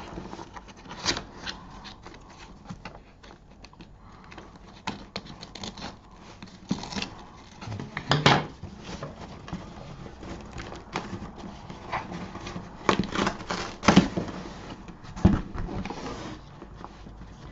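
Scissors slitting the packing tape on a cardboard shipping box, and hands handling the cardboard: irregular scrapes, rustles and knocks, the loudest about eight and fourteen seconds in.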